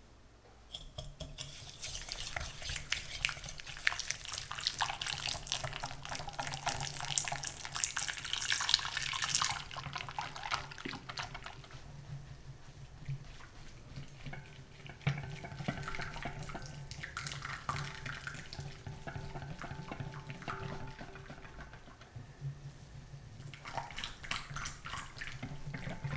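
Silicone-coated balloon whisk beating egg yolks and sugar in a glass bowl: a fast, wet swishing and clicking of the wires through the batter and against the glass. The whisking starts about a second in and runs hard for several seconds, then goes on in shorter, lighter bouts.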